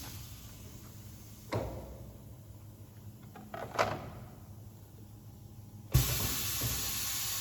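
Pneumatic two-head PVC window welding machine working: two single clunks of its mechanism moving, then a sudden steady hiss of compressed air from about six seconds in.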